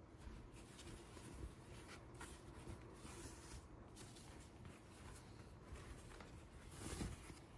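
Faint rustling of cloth as a pair of cotton-stretch briefs is handled, turned over and its elastic waistband pulled, with a louder brush of fabric near the end.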